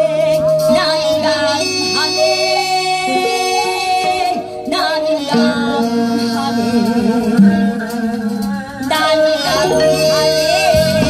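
A woman singing a Korean gugak-pop song in pansori style, her held notes wavering with wide vibrato, over amplified instrumental backing music.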